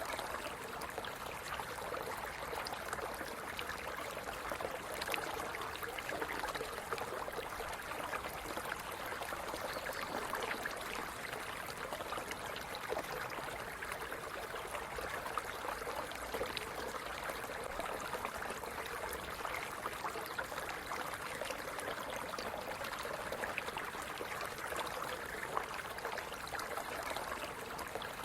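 Small stream running steadily, water gurgling and splashing over stones with many small bubbling trickles.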